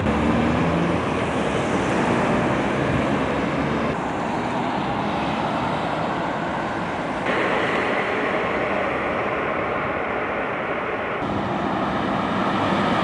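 Road traffic noise: a steady wash of cars passing on a busy multi-lane road, changing abruptly a few times.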